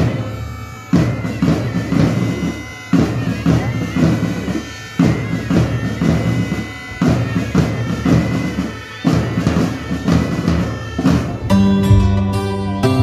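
Pipe band playing: bagpipes sounding over a regular bass-drum beat. About a second before the end it switches abruptly to background music.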